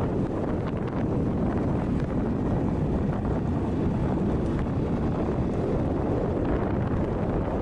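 Wind buffeting the microphone on a moving Honda Monkey 125, with its single-cylinder engine running steadily underneath.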